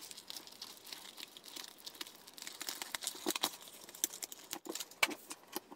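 Plastic packaging crinkling and crackling as hands unwrap a doll from it, with scattered sharp crackles throughout.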